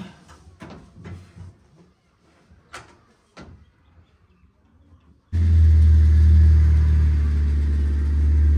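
Faint scattered taps and rubs, then about five seconds in a loud, steady, low car engine and road rumble starts abruptly.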